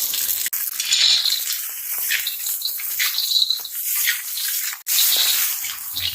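Shellfish cooking in water in a pot: a steady watery hiss with a few sharp clicks of shells or utensil.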